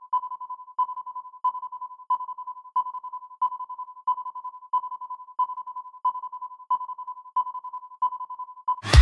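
Synthesized electronic tone held at one steady pitch, pulsing with a short tick about every two-thirds of a second.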